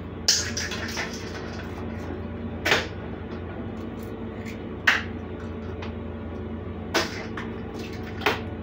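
Eggs being cracked against stainless steel mixing bowls: five sharp taps about two seconds apart, the first followed by a short ring.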